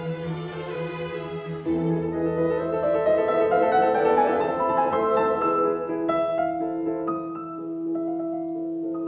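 Background music: slow classical-style strings with cello and piano, notes held and changing about every second.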